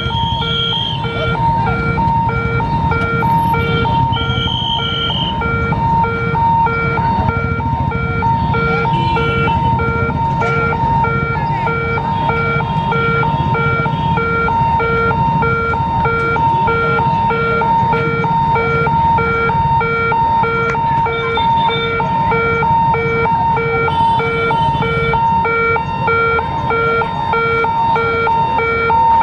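Level crossing warning hooter beeping in a fast, even pulse of one pitched tone, the signal that the gate is being closed for a train. Under it is a steady rumble of street traffic and crowd, and near the start there are two short high toots.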